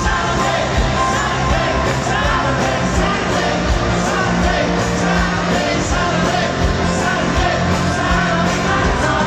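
Live rock band playing an up-tempo rock and roll song on grand piano, drums and electric guitar, with singing over it, heard through the stadium PA from the crowd.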